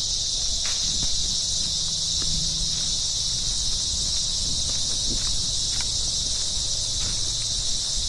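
Steady, high-pitched insect chorus buzzing without a break, with a few faint footsteps crunching on dry leaf litter.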